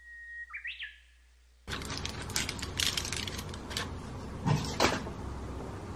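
A bird-like chirp over the title card: a steady whistle-like tone, then a quick warble that rises and stops about a second in. About a second and a half in, room sound cuts in, with scattered clicks and handling noises and two louder knocks close together near the five-second mark.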